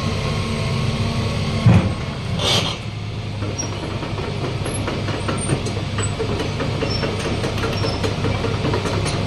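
Hitachi ZX240 excavator's diesel engine running steadily, with a loud clunk about two seconds in followed shortly by a brief hiss, then small clicks and rattles.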